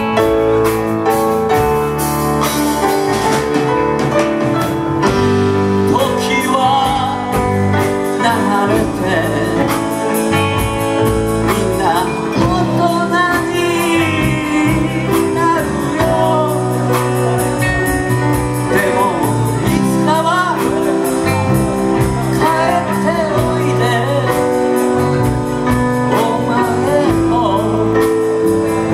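Live rock band playing, with electric guitars, bass guitar, keyboard and drum kit. A man sings lead over them, his voice coming in a few seconds in.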